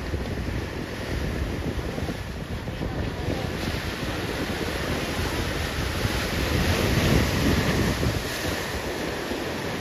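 Ocean surf breaking and washing in, with wind buffeting the microphone; the rush of the surf swells loudest about seven seconds in.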